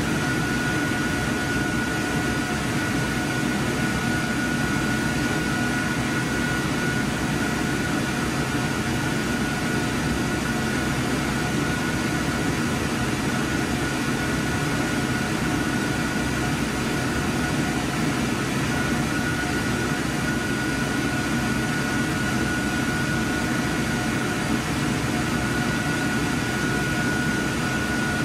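Steady running noise of IMAX 70mm projection-booth machinery, a constant whir and fan rush with a thin high whine over it that drops out briefly a few times.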